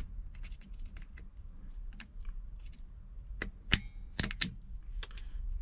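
Small metallic clicks and taps of grips working a spring clip on a car seat adjuster mechanism, with a few sharper clicks a bit over halfway through, one ringing briefly.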